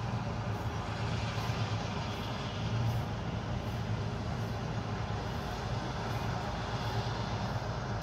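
Vishal 435 combine harvester running steadily while it cuts wheat: an even engine drone with a low hum underneath and a spread of machine noise above it.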